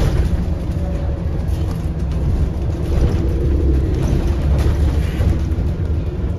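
Double-decker bus heard from inside the passenger saloon while it drives: a steady low engine and road rumble with a faint hum over it.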